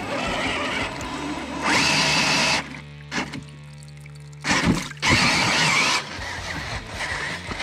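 Background music, with two loud bursts of a Redcat Gen8 Scout II RC crawler's motor and tyres churning through muddy creek water, about two and five seconds in.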